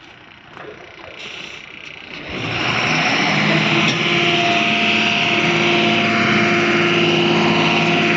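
Heavy tipper truck engine, faint at first, comes up loudly about two seconds in and then runs steadily at high speed.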